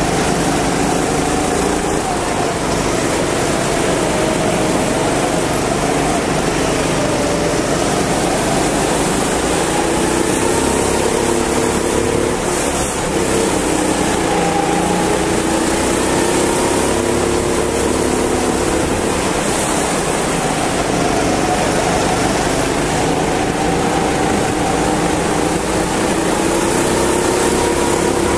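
Go-kart engine running at racing speed, its pitch rising and falling with the throttle, over a steady rush of noise.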